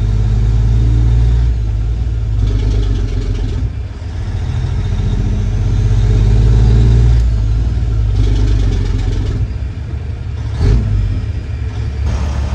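Semi truck's diesel engine running under load, its level swelling and easing every few seconds, with a single thump about ten and a half seconds in.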